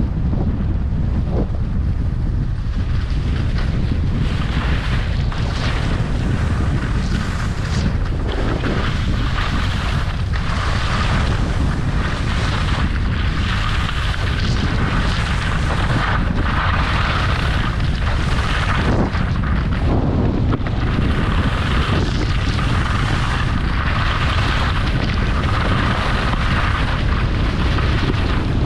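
Wind buffeting the microphone during a fast ski descent, with skis scraping and hissing over spring snow in a run of turns that swell and fade every second or two.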